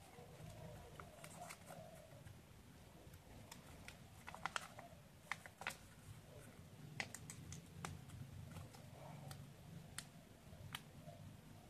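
A sheet of paper being folded and creased by hand: faint, scattered crinkles and small clicks, busiest around the middle, over a low steady hum.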